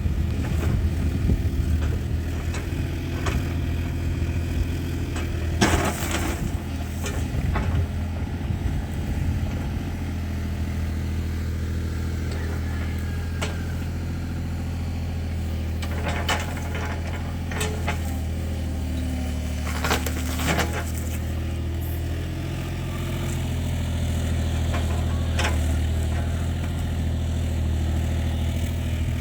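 An engine running steadily at idle, its pitch holding even, with a few short clicks and knocks over it.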